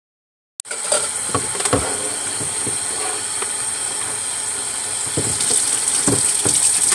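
Kitchen tap running into a clear plastic tub in a stainless steel sink, a steady splashing hiss that starts suddenly about half a second in, with scattered clunks of the plastic tub being handled and scrubbed.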